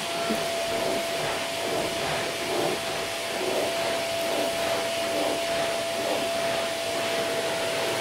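Vacuum cleaner running over carpet: a steady rush of air with a thin, constant whine, swelling and easing about once a second.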